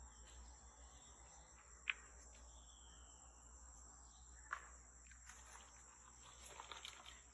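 Faint forest ambience: a steady high insect drone with a low, steady rumble of distant highway traffic beneath it. Two sharp clicks come about 2 and 4.5 seconds in, and a soft crackling rustle comes near the end.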